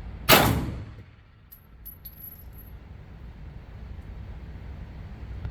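A single 9mm pistol shot at an indoor range, about a third of a second in, with a short echoing decay, followed about a second later by faint high metallic tinkles of spent brass landing, over a steady low rumble.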